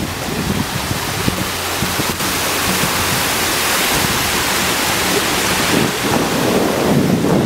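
Steady loud rushing of water pouring over a rock ledge at the top of a waterfall, with wind buffeting the microphone.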